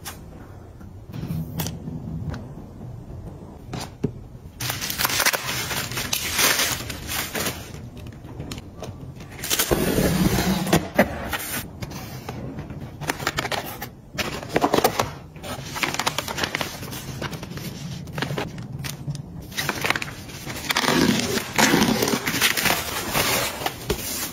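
Close-up handling of cardboard packaging: a few light clicks and taps, then from about four seconds in, boxes being handled and opened, with cardboard and paper rustling and scraping that come in louder stretches.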